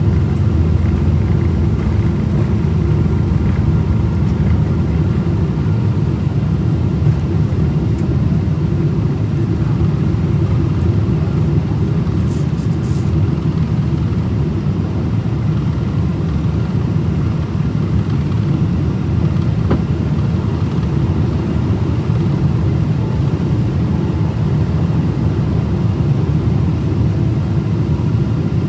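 Boeing 777-200's jet engines and airflow heard from inside the passenger cabin as a steady, loud low rumble during the climb just after takeoff.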